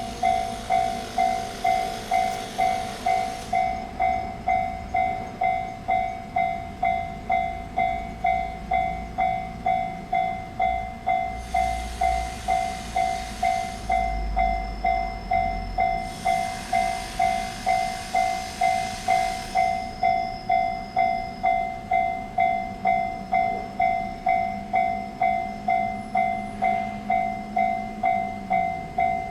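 Level-crossing warning bell ringing with an even, fast clang of about two strikes a second, while a train passes with bursts of rushing wheel and rail noise.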